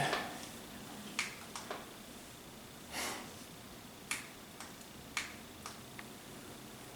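Scattered light clicks and taps, about eight over several seconds, with a brief soft rustle about three seconds in, from hands working on a desktop PC build.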